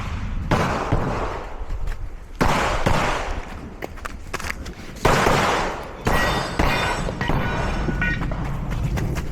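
Glock 34 Gen5 MOS 9mm pistol firing rapid strings of shots during a timed match stage, in clusters with short pauses between them.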